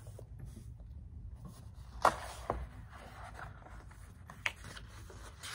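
A paper picture book being lowered and its pages handled and turned: a sharp tap about two seconds in, a softer knock just after, paper rustling, and another tap near the end.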